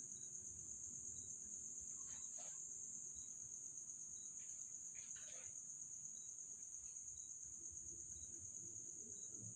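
Crickets or other night insects chirping in a steady, high, unbroken chorus, with a faint regular ticking call about once every 0.7 seconds. Two faint falling sounds come about two and five seconds in.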